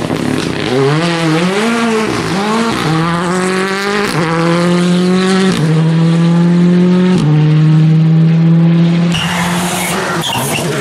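Ford Fiesta rally car's engine under hard acceleration. The revs climb and drop back with each of several quick upshifts, then hold a steady high note. About 9 s in the driver lifts off, and a few crackling pops follow.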